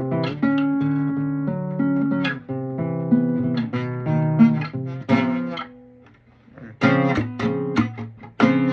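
Nylon-string classical guitar played fingerstyle, notes of a chord picked one after another and left ringing together. After a short break about six seconds in, a few sharp strummed chords.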